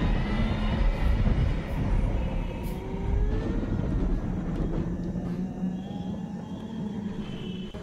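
Horror sound effect laid over the footage: a low rumbling drone with faint creaking, sliding tones, slowly getting quieter.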